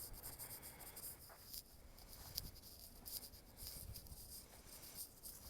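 Faint outdoor ambience of insects chirping rapidly and steadily, with a few soft thumps.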